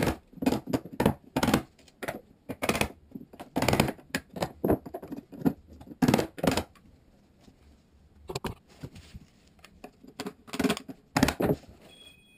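Claw hammer striking a wood chisel in a run of sharp, uneven taps, with a short pause partway through, as the chisel cuts away the edge of the hardwood flooring.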